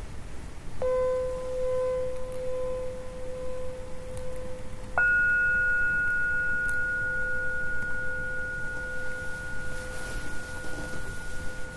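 Steady held tones with no speech. A low tone starts about a second in, and a higher tone joins suddenly about five seconds in; both hold without fading.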